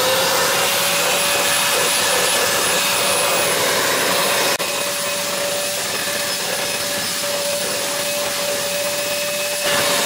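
Vacuum motor of a 4-in-1 car-washing machine running steadily with a high whine, sucking dirt out of the gap beside a car seat through a flat crevice nozzle. About halfway through there is a click and the loudness drops slightly, then it comes back up near the end.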